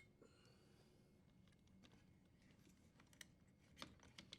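Near silence with a few faint clicks and taps late on, from the dishwasher's metal junction box being unhooked and slid off its support bar.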